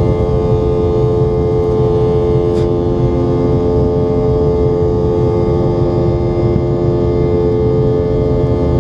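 Steady cabin drone of a Boeing 717's rear-mounted Rolls-Royce BR715 turbofans: a constant multi-tone hum over a low rumble.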